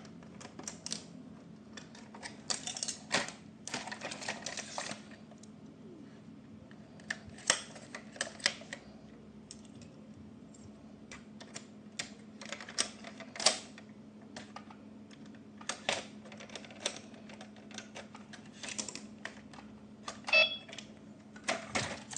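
Irregular clicks, taps and short rustles of plastic toy parts and packaging being handled, with a brief pitched tone near the end.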